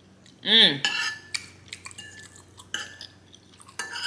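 A short vocal sound about half a second in, rising then falling in pitch, then a fork or spoon scraping and clinking against a plate of spaghetti in meat sauce.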